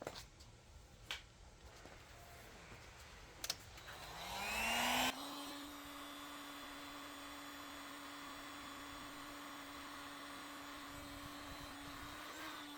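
Heat gun switched on after a few handling clicks: its fan motor spins up with a rising whine about four seconds in, then runs steadily with a constant hum and a rush of hot air.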